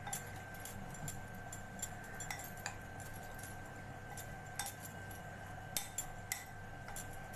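Steel spoon stirring boiled corn kernels coated in cornflour in a glass bowl, with irregular light clinks of the spoon against the glass.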